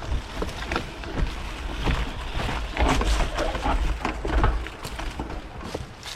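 Mountain bike rolling over a rough, rocky trail: irregular clatter and knocks from the tyres and bike over a low rumble of wind on the microphone.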